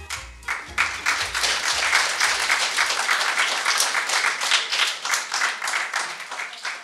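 Audience applause: many people clapping right after a piece of music ends, fading away near the end.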